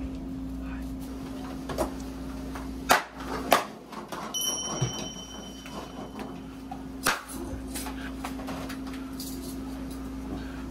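Steady hum of restaurant kitchen equipment, with a few sharp slaps and knocks as naan dough is handled and shaped by hand; two loud knocks come close together about three seconds in, and another about seven seconds in. A faint high steady tone sounds for about two seconds midway.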